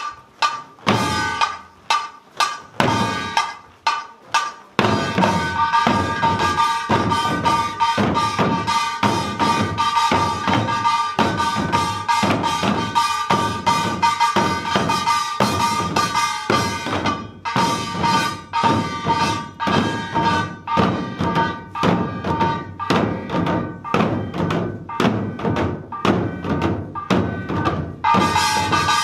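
Korean buk barrel drums beaten in a drum dance: a few spaced strokes for the first five seconds or so, then fast, continuous drumming. A small brass hand gong (kkwaenggwari) rings over the drumming, with a brief lull about 17 seconds in.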